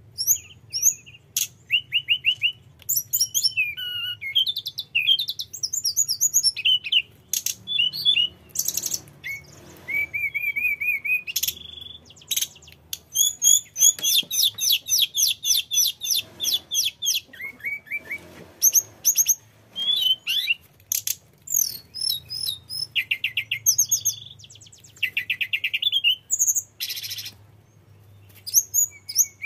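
Hill blue flycatcher (tledekan gunung) singing continuously: a fast, varied stream of clear whistles, trills and rapid runs of repeated notes, with brief pauses between phrases. The song is full of learned fill-in phrases (isian), the continuous rolling song that keepers call ngerol.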